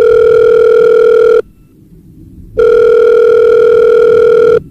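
Telephone ringback tone, the ringing a caller hears while the other phone rings: a steady buzzy tone in two rings about two seconds long with a pause of about a second between them. The call is going unanswered.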